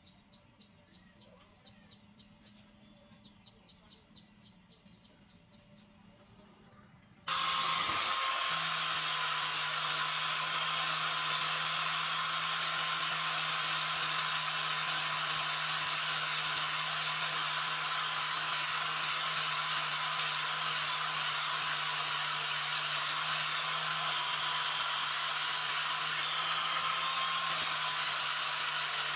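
After about seven seconds of near quiet, an angle grinder starts abruptly. It then runs steadily, its abrasive disc grinding rust off a razor blade.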